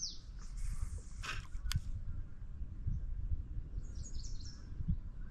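A songbird singing a quick run of high, falling notes, heard at the start and again about four seconds in, over a steady low rumble, with a couple of sharp clicks a little over a second in.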